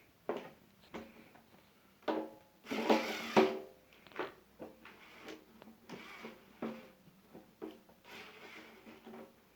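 Irregular clicks, knocks and rattles of a sandwich toaster's plastic and metal parts being handled and worked on, with a louder clatter about three seconds in.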